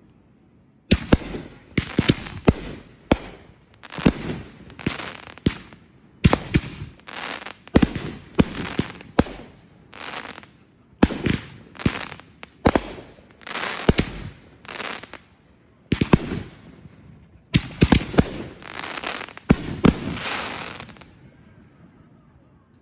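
Fireworks going off in a rapid barrage of sharp bangs with crackling tails, several a second at times; it starts about a second in and dies away shortly before the end.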